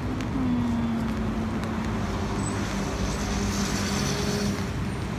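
A bus engine runs steadily close by amid street traffic. Its low hum slides down a little in pitch just after the start, then holds, and a hiss comes in about three seconds in.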